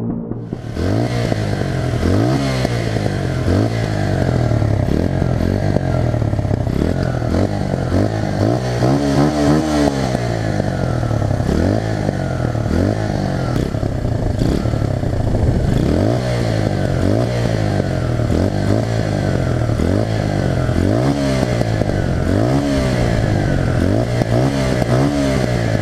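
Senke SK 125 Raptor (Lexmoto Venom 125 EFI) 125 cc four-stroke engine through its stock exhaust, revving up and dropping back again and again, about every second or two.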